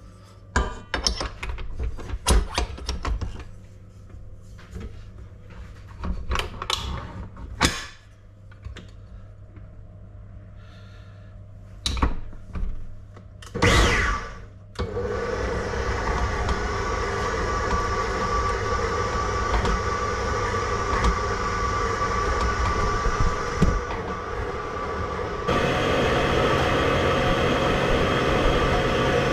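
Knocks and clatter of the steel bowl and stand mixer being handled, then about fifteen seconds in the stand mixer's motor starts and runs steadily, its beater mixing butter into flour. About ten seconds later the motor steps up louder.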